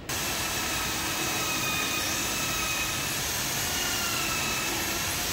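Corded electric drill running at speed, boring into a hardwood frame: a steady motor whine over a hiss, its pitch wavering slightly.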